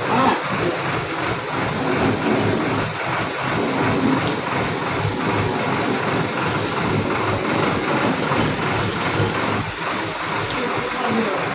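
Tractor engine running steadily, driving the tractor-mounted hydraulic crane as it raises a utility pole upright.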